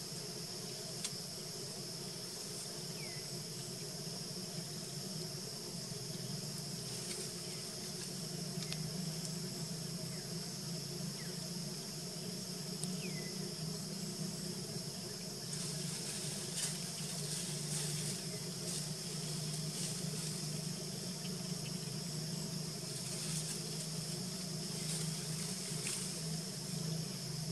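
Steady high-pitched drone of insects, with a low hum underneath and a few faint short chirps. The hiss swells louder twice, around the middle and near the end.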